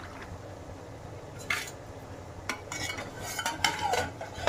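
Steel ladle stirring cream in a steel kadhai as it cooks down into ghee, over a low frying sizzle. From about a second and a half in, the ladle knocks and scrapes against the pan in a string of sharp metal clinks, one ringing briefly near the end.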